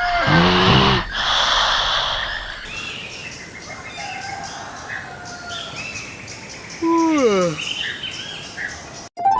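Birds chirping and whistling, with two falling-pitch calls, one just after the start and one near the end.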